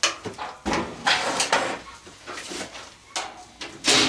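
Parts of a washing machine being pulled and pried off during teardown: a series of uneven knocks, clatters and scrapes, loudest near the end.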